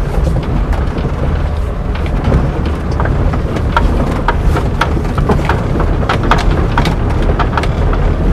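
Car driving slowly over a rough dirt track, heard from inside the cabin: a steady low rumble of engine and tyres, with frequent small knocks and rattles from about two seconds in as it goes over bumps.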